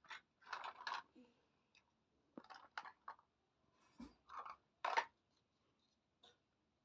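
Handling of miniature toy kitchen pieces: irregular short clicks, taps and crunchy scrapes in scattered bursts, the loudest about five seconds in.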